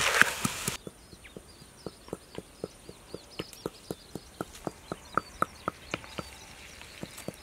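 Stone pestle tapping in a small stone mortar, about four light knocks a second, crushing black pepper. Birds chirp faintly behind it.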